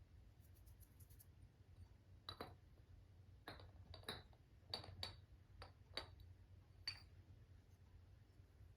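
Kitchenware being handled in a quiet room: about ten light clinks and taps, irregularly spaced, bunched in the middle few seconds.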